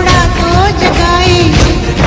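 A song playing loudly, with a voice singing a gliding melody over a steady beat.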